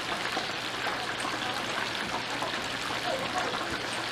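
Pieces of chicken deep-frying in hot oil, giving a steady crackling sizzle, with a low steady hum underneath.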